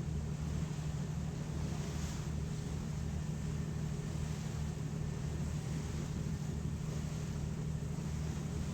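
A passenger ferry's engines running steadily: a low hum with an even throb beneath it, over the rush of wind and water.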